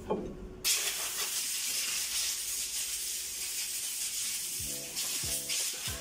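A steady hiss that starts abruptly just after half a second in and fades near the end. Background music comes in about four and a half seconds in.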